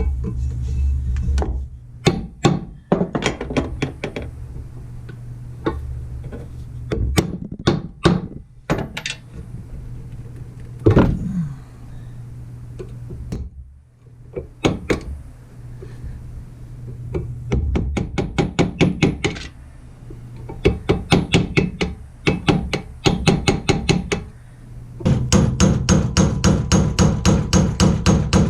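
Repeated hammer strikes on metal, some single and some in quick runs; the longest run, at about four strikes a second, comes near the end.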